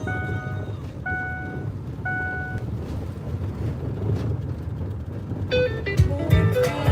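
Car cabin road noise while driving, with three electronic beeps about a second apart, each lasting about half a second. Music starts again near the end.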